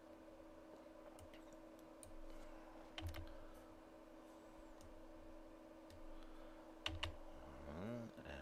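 Faint, scattered computer mouse clicks and keyboard key presses, the sharpest about three seconds in and again about seven seconds in, over a steady low hum.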